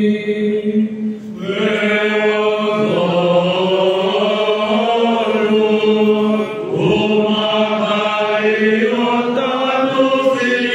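Orthodox liturgical chant: voices singing a slow melody over a steady held drone note, with a brief break a little over a second in.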